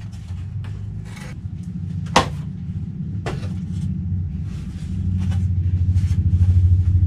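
A low, pulsing rumble runs throughout and grows louder over the last two seconds, with a few sharp wooden clicks on top, the loudest about two seconds in, as laser-cut plywood parts are snapped out of their sheet.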